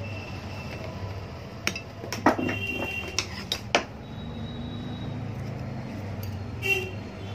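Metallic clinks and knocks from the metal body and parts of a dismantled electric iron being handled: about five in quick succession a couple of seconds in, and one more with a short ring near the end, over a steady low hum.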